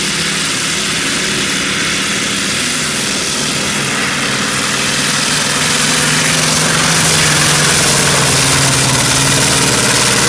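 Modified pulling tractor's engine running at full throttle under load as it hauls the brake sled down the track. The sound is loud and steady, with a low hum that climbs slightly in pitch, and it gets louder about halfway through.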